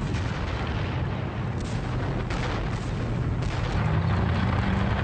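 Artillery and gunfire: a continuous low rumble of firing, with a few sharper shots between about one and a half and three and a half seconds in.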